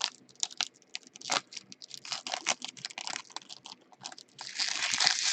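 Trading cards being handled on a table: a quick, irregular run of light clicks and flicks, then a longer rustle near the end.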